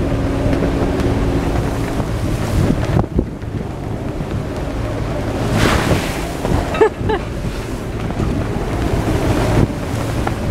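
Strong wind, gusting to about 35 knots, buffeting the microphone while rough sea breaks and splashes against a motoring sailing yacht's hull, with the yacht's engine running underneath. A bigger splash of water surges up a little over halfway through.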